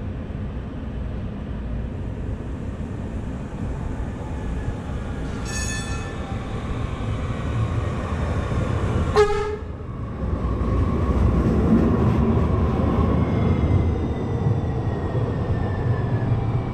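Light-rail trains in an underground station: a steady rumble of trains running, with two short toots about five and nine seconds in. After that a louder rumble with a slowly falling whine as a train comes in and slows.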